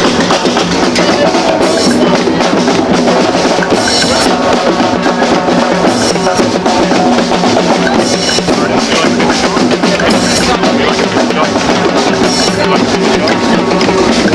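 Loud live drumming, several drums played together in a steady rhythm, with a bright crashing accent about every two seconds.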